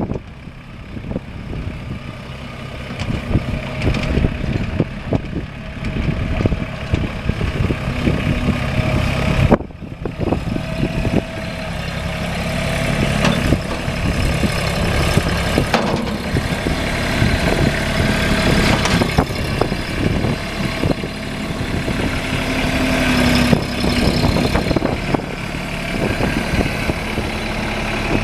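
Mahindra compact tractor's diesel engine running, with scattered knocks and clanks over it and a brief break about ten seconds in.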